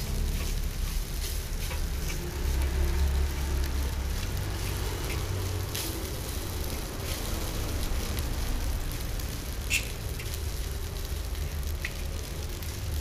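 Fried rice and egg sizzling in a large wok while a utensil scrapes and clicks against the pan, with scattered clicks and a sharper one about ten seconds in, over a low steady rumble.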